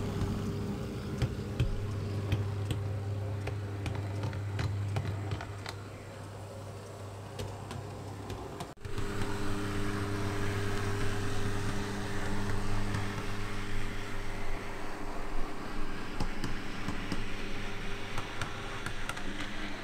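Heljan OO gauge Class 33 model locomotive running along the track: a steady hum, with the wheels clicking over rail joints and points in the first half. The sound breaks off sharply about nine seconds in and resumes as a similar steady hum.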